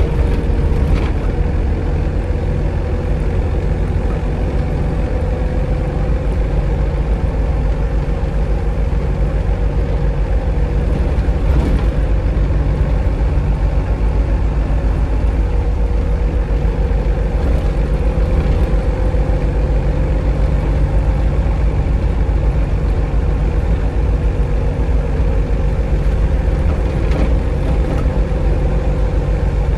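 Optare Solo SR single-deck bus heard from inside the rear of its passenger saloon: a steady low engine and drivetrain rumble with a steady whine over it, and a few brief rattles from the interior.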